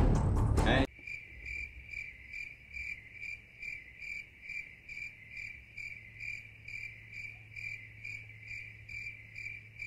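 Trailer soundtrack cuts off abruptly about a second in, replaced by a cricket chirping sound effect, evenly repeated about three chirps a second: the comic 'crickets' gag for an awkward silence.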